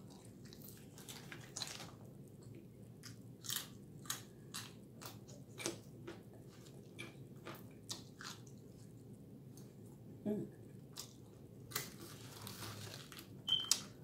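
Close-miked mouth sounds of a person eating fries: irregular wet smacks, bites and chewing, the loudest couple of smacks near the end.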